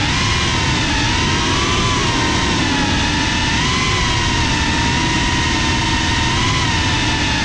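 FPV quadcopter's electric motors and propellers whining in flight, the pitch wavering gently up and down with throttle, over a steady low rumble.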